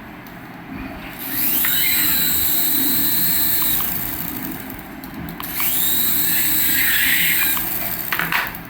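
A small electric toy motor whirring in two runs of about three seconds each, its high whine climbing as each run starts and then dying away.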